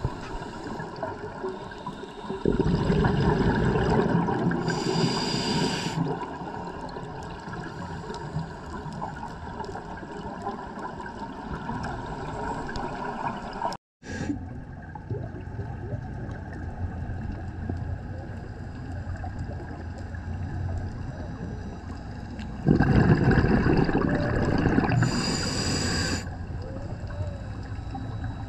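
Underwater ambience heard through a camera housing, with scuba regulator breathing: two loud bubbling exhalations of about three seconds each, one a couple of seconds in and one about 23 seconds in, each ending in a short hiss. The sound drops out for an instant near the middle.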